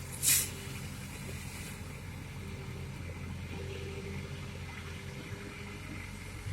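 Excavator's diesel engine running steadily. There is one short, loud hiss just after the start.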